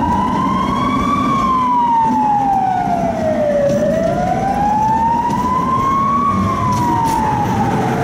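An emergency vehicle's siren wailing, its pitch sliding slowly up and down about once every five seconds, over the low running rumble of the tram.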